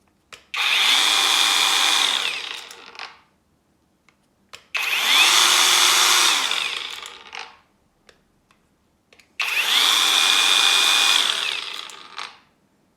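1600 W Makita angle grinder run with no load, switched on three times. Each time it spins up to a steady high whine, runs for about two seconds, then coasts down with falling pitch after it is switched off.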